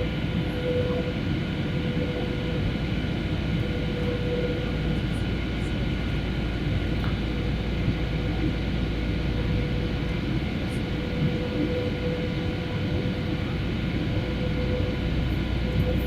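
Boeing 737 cabin noise in flight: the steady drone of the jet engines and airflow, with faint steady hums over it.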